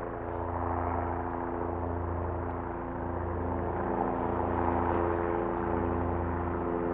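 A steady mechanical drone, like an engine running. Its low hum swells and dips about every second and a half.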